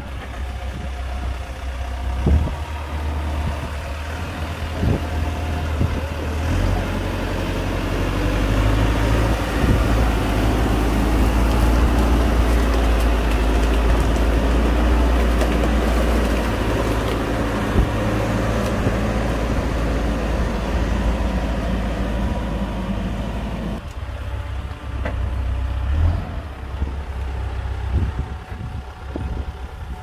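Diesel engine of an SD300N wheel loader running, revving up and holding under load for about fifteen seconds before easing back to a lower rumble. A few sharp clunks of the machine are heard along the way.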